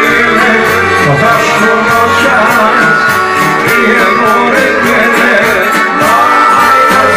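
Live Serbian folk band music: accordion and electronic keyboard playing loudly over a steady beat.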